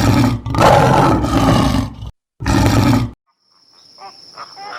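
Loud roaring from a large wild animal, in two long stretches and a shorter third. A little past three seconds in it cuts to a faint passage with a steady high insect drone and soft short calls.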